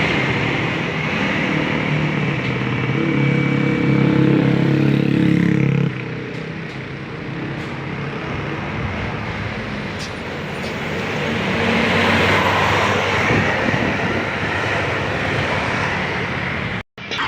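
Roadside traffic noise with a bus passing. A heavy engine's steady drone grows strong about three seconds in and cuts off suddenly near six seconds, and the road noise carries on and swells again later.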